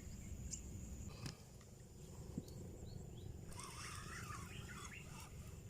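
Faint outdoor ambience: small birds chirping, with a cluster of calls from about three and a half to five seconds in, over a steady high insect whine and a low rumble.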